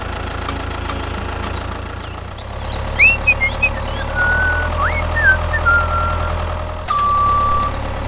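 Tractor engine running steadily with a low hum, a few short high chirps in the middle, and one long reversing beep about seven seconds in.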